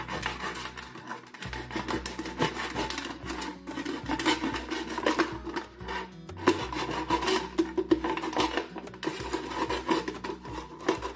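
Kitchen knife sawing through a thin clear plastic drink bottle, the plastic scraping and crinkling with each stroke of the blade.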